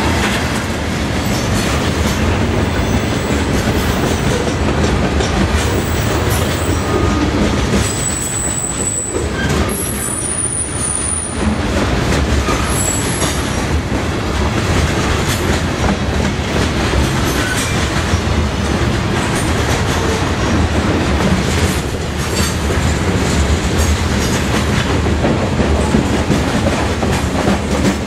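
Covered hopper cars of a CSX phosphate freight train rolling past, their steel wheels clattering steadily on the rails. A few brief high-pitched wheel squeals come about a third of the way in.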